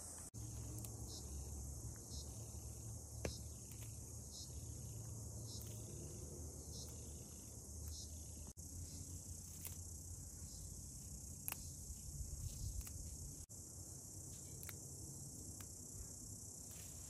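Steady high chirring of insects over a low steady hum, with a few light clicks and knocks. The sound drops out for an instant a couple of times.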